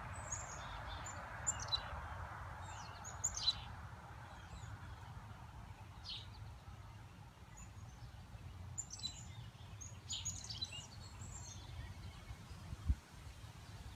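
Songbirds chirping in short bursts of quick high notes, in several groups, over a steady rush of wind in the trees with a low wind rumble. A single dull thump near the end.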